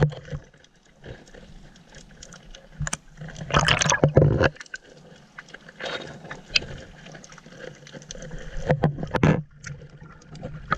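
Water sloshing and gurgling close to the microphone, with two louder splashes, one about four seconds in and one about nine seconds in.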